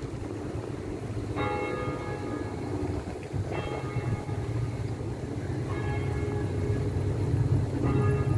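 A bell tolling, struck about every two seconds, each stroke ringing on and fading. A steady low rumble runs underneath.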